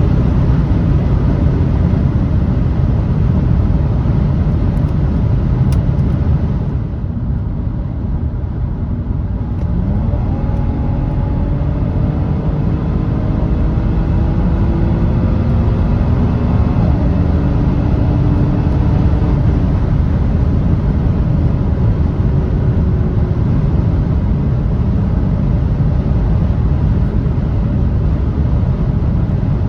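Audi S4's 3.0 L supercharged V6 pulling at high speed under heavy wind and road rumble. The sound eases briefly about seven seconds in, then the engine note climbs slowly and steadily as the car accelerates.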